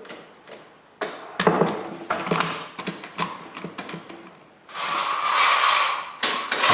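Woodworking clamps being tightened on a glued plywood top, with a run of sharp ratcheting clicks and knocks, followed by a steady whir of about a second and a half.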